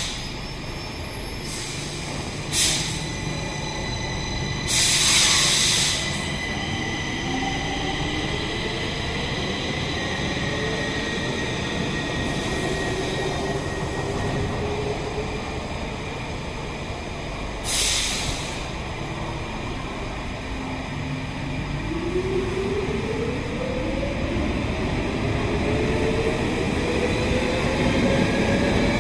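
Stockholm metro train running with a steady rumble, its motor whine rising in pitch twice as it accelerates. Short hisses of air break in three times.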